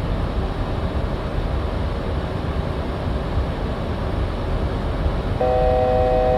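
Steady rumble and rush of air in the flight deck of a Boeing 737-800 in flight. About five seconds in, an electronic cockpit alert tone of several notes at once sounds steadily for about a second.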